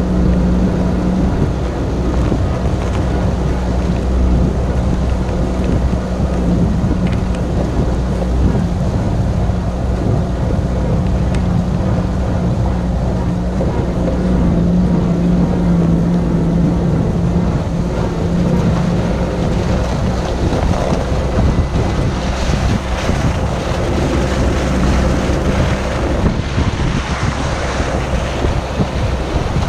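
UAZ off-road vehicle driving along a rough dirt track: a steady engine drone with wind noise on the microphone, getting rougher and rattlier after about twenty seconds.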